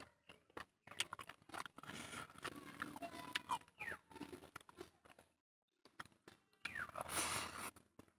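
Close-miked hand-eating sounds: fingers squishing and mixing rice with chicken curry on a plate in short irregular wet clicks, with chewing. A longer, louder burst comes about seven seconds in.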